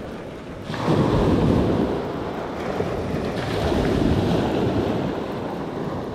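Wind buffeting the microphone over the wash of waves on the shore, growing louder about a second in.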